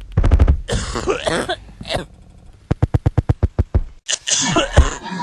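A smoker coughing hard in several harsh fits. In the middle of the coughing there is a quick, even run of clicking pulses, about ten a second.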